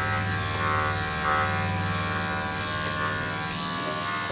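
Electric dog-grooming clippers running with a steady buzzing hum as they are drawn through a dog's thick coat.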